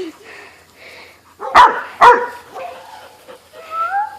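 A dog barking: two loud, sharp barks about a second and a half in, followed by softer pitched calls.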